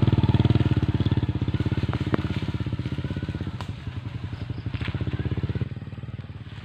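Small motorcycle engine running at low, steady revs with an even putter, slowly fading and gone about five and a half seconds in.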